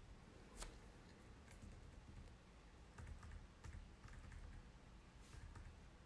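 Near silence: room tone with faint, scattered light clicks, a few a second at most, like taps on a keyboard or device.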